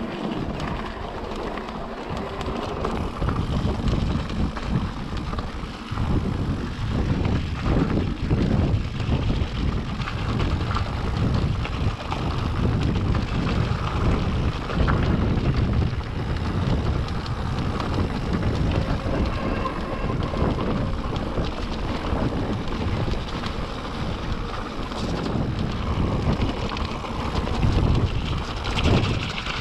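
Wind rushing over a chest-mounted action camera's microphone as an electric mountain bike rolls along a gravel and stone track, with a constant crunching and rattling of tyres and bike over the stones.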